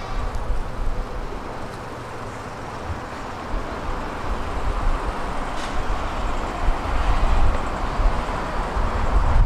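Low rumble of vehicles over a steady hiss, growing louder toward the end, with a faint click about halfway through.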